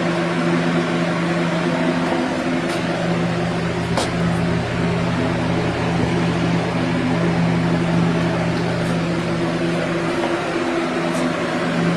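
Household humidifier running: a steady motor hum with an even hiss of air, and a few faint ticks.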